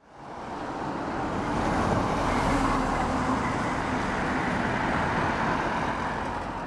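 Road traffic passing on a main road: a box lorry and cars driving by, a steady rush of engine and tyre noise that fades in over the first second or two.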